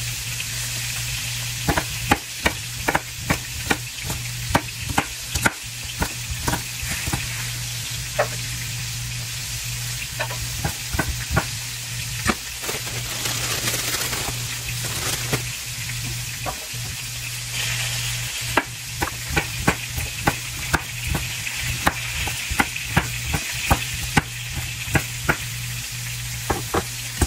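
Chef's knife chopping carrots on a wooden cutting board in quick runs of sharp knocks, with a pause near the middle, over the steady sizzle of short ribs searing in a pan and a low steady hum.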